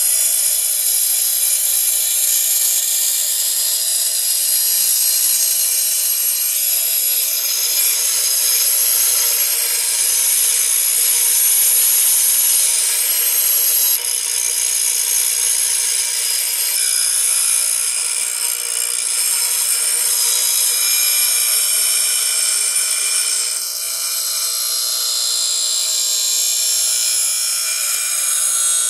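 Ryobi bench grinder's wheel grinding the bevelled edge of a steel lawn mower blade to sharpen it. The grinding is a loud, continuous, high-pitched noise that changes in tone several times as the blade is moved along the wheel.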